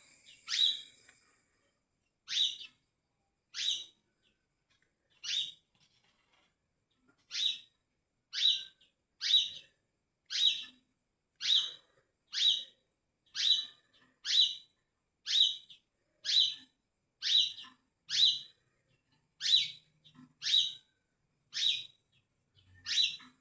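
Brown-throated sunbird (kolibri kelapa) giving a short, high call over and over: a few spaced calls at first, then about one a second.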